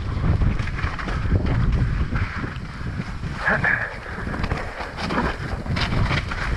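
Wind buffeting a helmet-mounted camera's microphone as a mountain bike descends a rocky trail at speed, with the rattle and knocks of the tyres and bike over rocks and roots.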